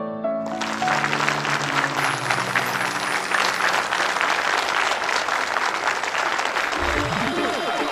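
Applause, a crowd clapping, breaking in about half a second in as the last piano notes of a song fade. Near the end a deep rising sweep begins under it.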